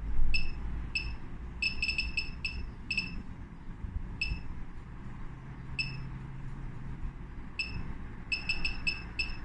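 Handheld digital oscilloscope's key beeps: short, identical high-pitched beeps as its buttons are pressed, some single and some in quick runs of four or five. A low steady rumble runs underneath.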